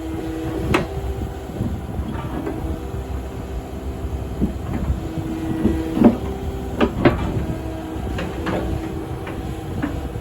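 Kubota KX080-4 8-tonne excavator's diesel engine running steadily, with several sharp knocks over it, the loudest about six and seven seconds in.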